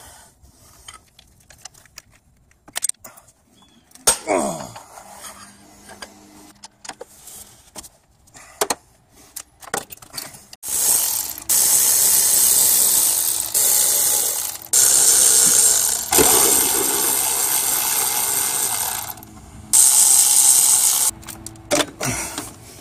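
A cordless electric ratchet runs in several bursts for about ten seconds in the second half, spinning out a camshaft sprocket bolt. Before it come scattered clinks and knocks of hand tools on metal.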